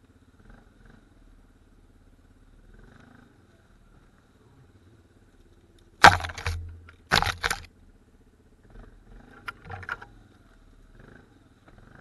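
ATV engine running low and slow in the background. Two loud scraping knocks against the camera cut in about six and seven seconds in, with softer ones near ten seconds, as branches brush past the helmet camera.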